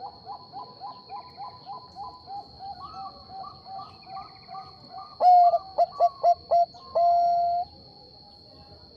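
Zebra dove (Bangkok perkutut) cooing: a quick run of short coos, about three a second, then a few louder coos about five seconds in, ending in one longer drawn-out coo. A thin steady high tone runs underneath.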